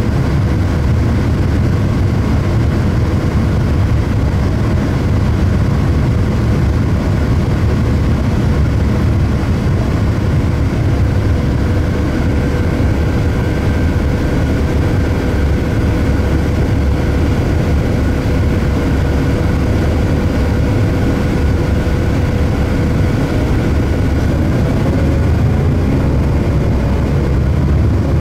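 Cabin sound of an Orion VII third-generation CNG transit bus: its natural-gas engine idles steadily with a low rumble and a faint steady whine. Near the end the bus pulls away.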